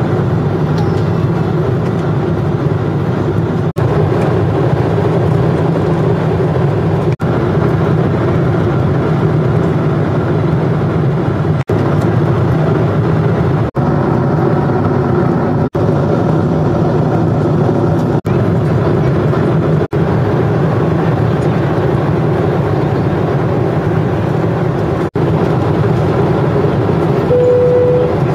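Jet airliner cabin noise in cruise: the steady drone of the engines and the airflow past the fuselage, cut by several brief gaps in the sound. A short steady tone sounds near the end.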